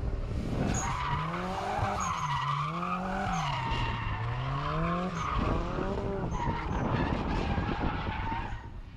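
Turbocharged Lada Zhiguli drifting round a track at a distance. The engine revs rise and fall again and again, and the tyres squeal through the slides.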